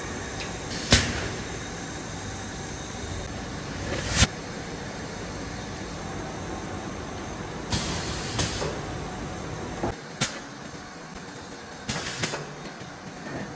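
Steady assembly-line machinery noise in a factory hall, with a few sharp clanks through it, the loudest about a second in and about four seconds in.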